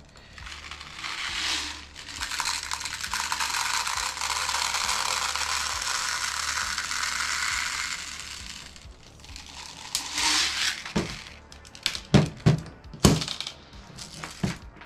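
Plastic airsoft BBs poured from a bottle into a 470-round high-capacity magazine: a steady, dense rattling hiss for several seconds, then a second short pour. Several sharp clicks and rattles follow near the end.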